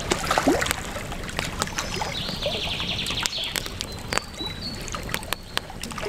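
Campfire crackling with frequent sharp pops over the steady rush of river water, and a bird's fast trill about two seconds in.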